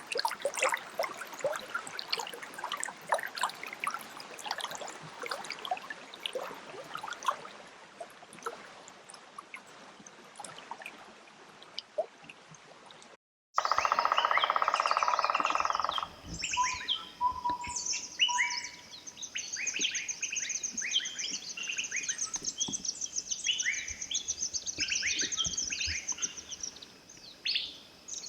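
Water trickling and splashing over rocks for about the first half. After an abrupt cut, a loud buzz lasts about two seconds, then many forest birds chirp in short falling notes over a long, fast, high trill.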